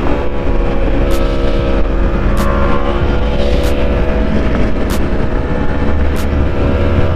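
2016 Yamaha R1's crossplane inline-four running steadily at highway cruising speed through its SC-Project exhaust, under heavy wind rush on the microphone. A faint click repeats about every second and a quarter.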